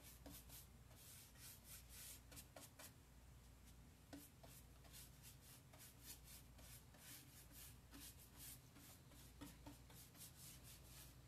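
Faint, repeated rubbing strokes of wax being wiped over painted wood furniture, with a low steady hum underneath.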